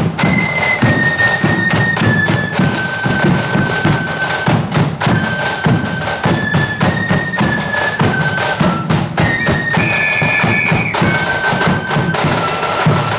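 Marching flute band playing a tune: flutes in unison carry a high melody over a steady beat of drums.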